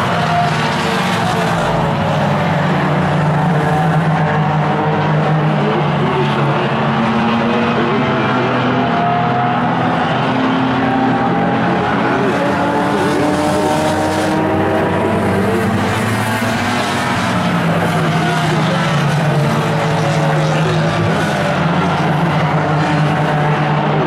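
A pack of small budget race cars lapping a short oval track at speed, several engines running at once, their pitches gliding up and down as the cars pass and go through the turns.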